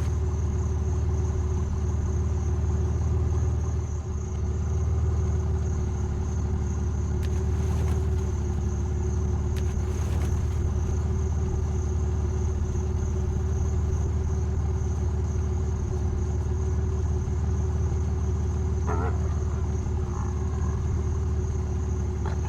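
An engine running steadily at idle, with a constant low rumble and hum. A brief higher sound cuts in near the end.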